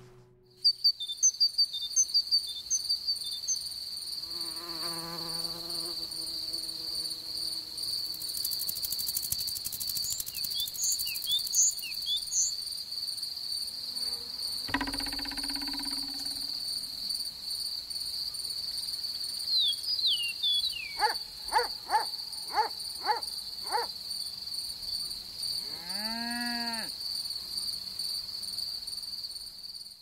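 Steady, high chirring of crickets in a meadow, with scattered short bird chirps and a few other brief animal calls and a click over it.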